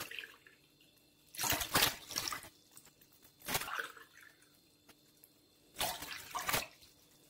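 Water poured from a plastic container into a drinking glass and tipped out into a glass mixing bowl, glassful by glassful, as water is measured for a dough. There are three short splashing pours about two seconds apart.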